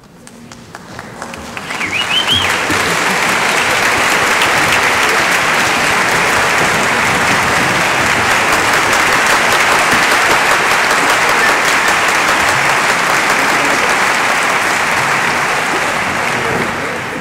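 Concert-hall audience applauding, swelling up over the first couple of seconds and then holding as steady, full clapping.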